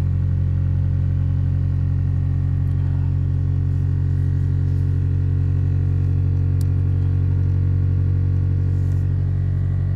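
Toyota Avensis 2.0-litre four-cylinder petrol engine idling steadily at a raised cold-start idle of roughly 1,500 rpm, just after starting at −11 °C, heard from inside the cabin.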